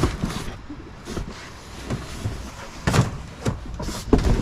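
Several knocks and thumps over a noisy background, the loudest about three seconds in and another cluster near the end.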